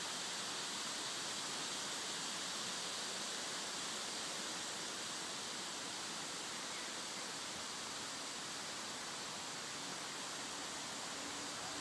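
Wind rustling the leaves of a broadleaf tree canopy: a steady, even hiss that hardly rises or falls.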